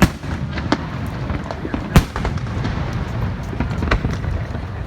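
Fireworks going off: a run of sharp bangs and smaller crackles over a steady low rumble, the loudest bang about two seconds in.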